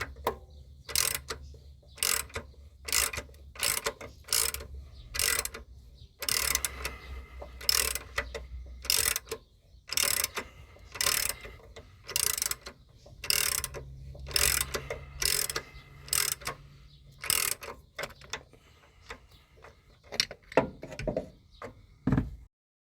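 Ratchet wrench clicking in regular strokes, about one every three-quarters of a second, turning the centre bolt of a homemade puller to draw off the crankshaft harmonic balancer. A faint low hum runs underneath, and the strokes stop near the end.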